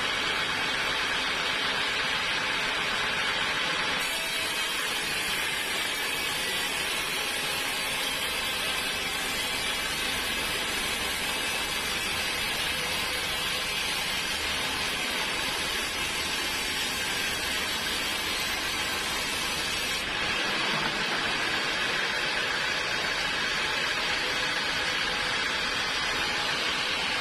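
Sawmill machinery running, a steady noisy whir with a faint hum under it. Its character changes abruptly about 4 seconds in and again about two-thirds of the way through.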